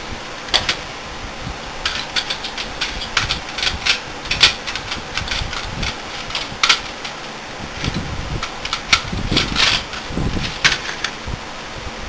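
Metal hard-drive cage being handled and fitted into an open desktop PC case: a scatter of irregular metal clicks and clanks over a steady hiss.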